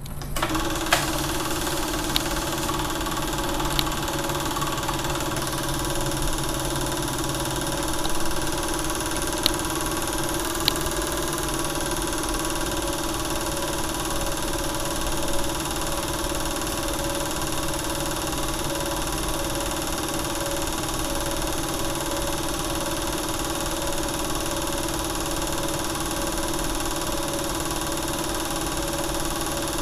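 Film projector running steadily: a constant motor and film-transport whir with a few sharp clicks in the first ten seconds or so. This is typical of a silent home movie transferred by filming the projection.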